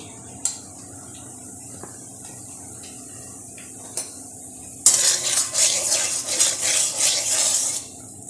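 Turmeric being stirred in hot oil in a metal karahi over a faint steady sizzle. After a couple of single clicks, about three seconds of loud scraping against the pan begin some five seconds in and stop sharply.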